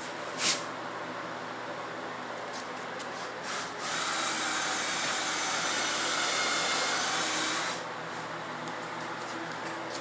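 An electric power tool starts with a brief blip, then runs steadily with a whine for about four seconds and stops abruptly. A sharp click comes about half a second in.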